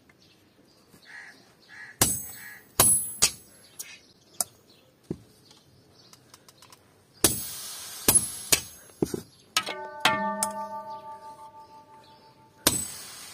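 Hand hammer striking a chisel held in tongs against a red-hot steel sword blade on an anvil: sharp metallic clangs in irregular groups, several with a high ring, one ringing on for a couple of seconds around ten seconds in.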